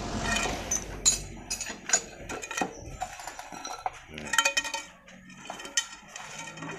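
A string of sharp metallic clinks and clanks, some ringing briefly, from short steel pipes used as engine-moving rollers being handled and knocking against each other and the ground.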